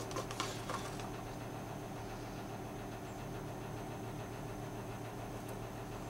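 Steady low hum with a faint high-pitched whine over it, with a few faint clicks in the first second.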